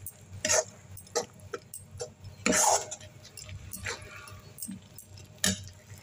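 Metal spatula scraping and knocking against a kadai as a thick mustard-paste masala is stirred and sautéed, in short scattered strokes; the loudest sound comes about two and a half seconds in.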